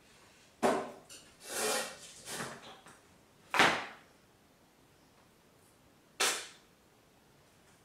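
Knife working at a stiff plastic tub that won't open: a series of sharp clicks and crackling scrapes of plastic, the loudest snap a little over three and a half seconds in and another just after six seconds.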